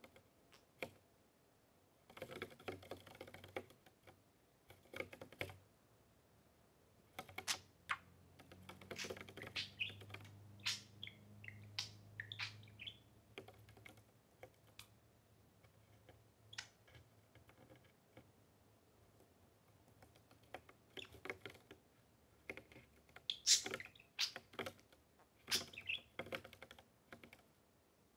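Bursts of light, irregular clicking and tapping with a few soft budgerigar chirps, the sort of sounds budgies make moving about and pecking on a hard tabletop.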